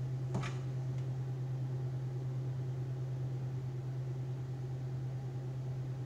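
Steady low hum and airy hiss of a loud fan running, with one short sharp sound about half a second in.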